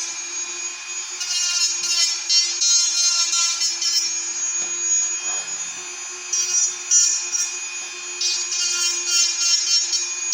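Dental lab rotary handpiece spinning a resin-trimming bur at about 13,000 RPM, grinding the edge of an acetate tray. A steady high motor whine, with a rasping grind that swells and fades as the bur bites the plastic.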